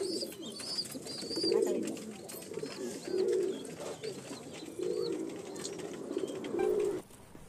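Domestic pigeons cooing: a low coo repeats about every second and a half, with short high chirps over it, and it cuts off just before the end.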